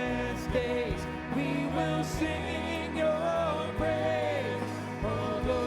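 Live worship band playing a slow praise song, with singers holding long, sliding notes over the band.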